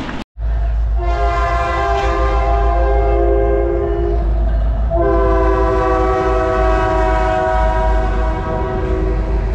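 Freight train horn sounding two long blasts, a chord of several steady tones, the second starting about five seconds in, over a steady low rumble.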